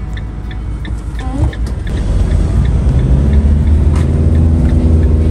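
Motorhome engine and road noise while driving, with the engine note growing louder and steadier after about two and a half seconds. A light regular ticking, about three a second, runs through the first half.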